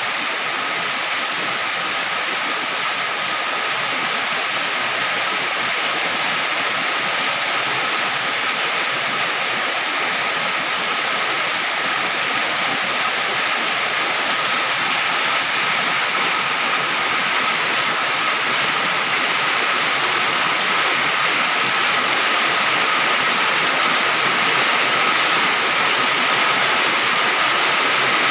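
Rain falling on a galvalume (aluminium-zinc coated steel) sheet roof: a dense, steady patter of drops on the metal that grows slightly louder.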